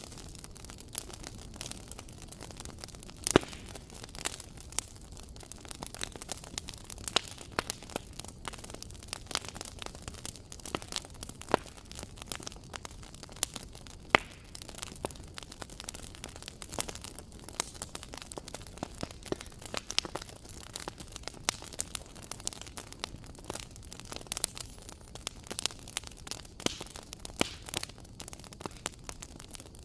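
Wood fire in a fireplace crackling: irregular sharp pops and snaps, several a second, over a steady low hiss from the flames. Two pops stand out louder, a few seconds in and about halfway through.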